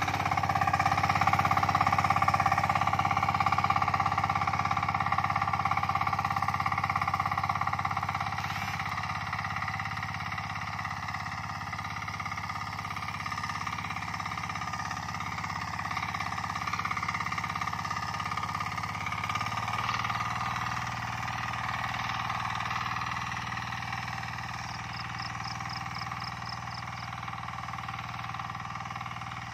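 Walk-behind hand tractor's small engine running steadily under load while it plows soil, growing fainter as the machine works away across the field.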